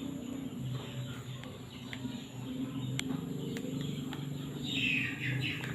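Birds calling in the background over a low steady hum, with a short falling chirp about five seconds in and a few faint light clicks.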